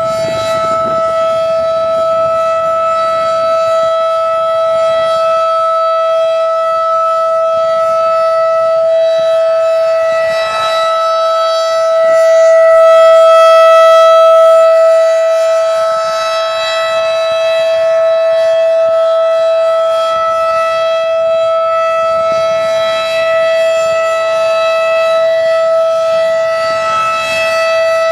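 Second-generation Federal Signal 2001 outdoor warning siren sounding the steady Alert tone at full speed, about 690 Hz. Its rotating head sweeps the sound round, so it grows loudest about halfway through as the horn points toward the listener, then eases off.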